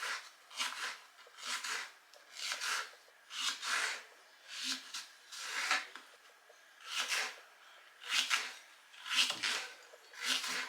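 Repeated rubbing or scraping strokes, about one a second, each a short hissing swell.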